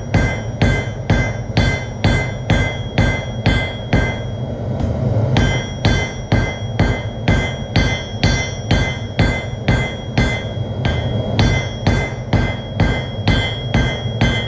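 Hand hammer striking hot 1/4-inch square iron stock on an anvil while tapering its end: steady blows at about two a second, each with a bright metallic ring, with a short pause about four seconds in before the rhythm resumes.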